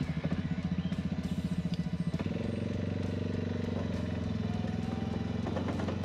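Suzuki quad bike (ATV) engine running with a pulsing, uneven idle, then settling into a steadier, fuller drone about two seconds in as it pulls away under way, with a faint rising whine in the middle.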